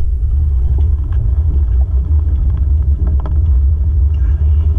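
Car driving on a wet road, heard from inside through a waterproof camera housing: a steady, muffled low rumble of engine and road noise, with a few faint ticks.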